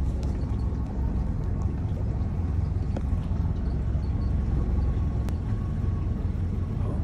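Motorboat underway: a steady low rumble of its engine running, with one brief sharp click about five seconds in.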